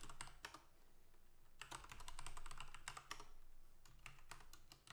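Typing on a computer keyboard: rapid keystroke clicks that come in a quick run in the middle, with sparser taps before and after.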